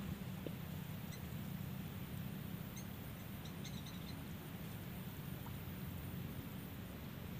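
Quiet outdoor ambience: a steady low hum with a few faint, short high-pitched chirps, about a second in and again around three to four seconds in.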